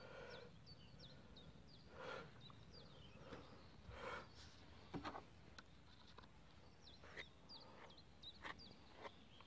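Faint, quick bird chirps repeating throughout, over quiet outdoor ambience, with a few soft handling sounds and a single click about five seconds in.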